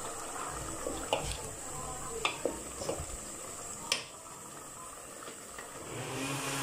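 Wooden spoon stirring a bottle-gourd and shrimp curry in a metal pot, over a low steady hiss, with a few light knocks of the spoon against the pot, the sharpest about four seconds in.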